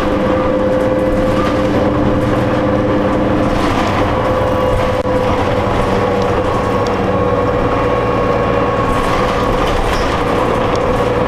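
Cabin noise of a New Flyer D40LF diesel city bus under way: the engine and road noise run steadily, with a constant whining tone through it.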